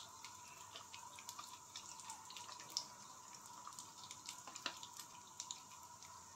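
Faint, irregular ticking and crackling of oil heating under popcorn kernels in a pan, over a faint steady hum.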